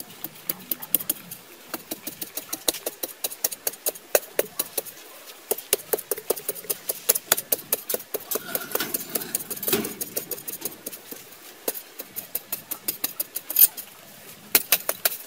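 Long-handled machete blade chopping and scraping into hard, dry earth: a quick, irregular run of sharp strikes and clinks, several a second, with a few short pauses.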